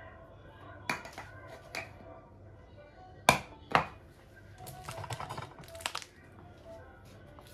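Small clear plastic spice jars and a spoon being handled on a kitchen countertop: a few sharp clicks and knocks, the two loudest a little after three seconds in, then a spell of light clattering, over soft background music.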